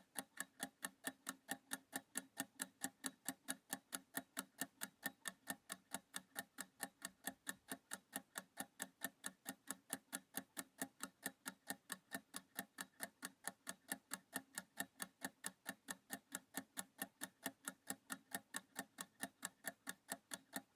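Clock-style ticking from a countdown timer sound effect: quick, even ticks at a steady pace, cutting off at the very end.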